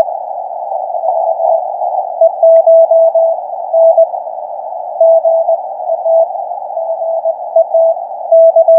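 Morse code (CW) from a Ten Tec Eagle transceiver: a single steady mid-pitched tone keyed on and off in short and long elements. It sits over a continuous band of receiver hiss narrowed by the CW filter.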